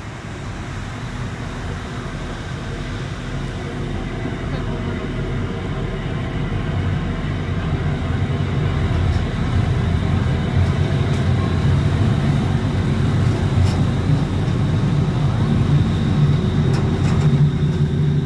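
Vehicle running with a low hum and a faint steady high whine, the noise growing gradually louder.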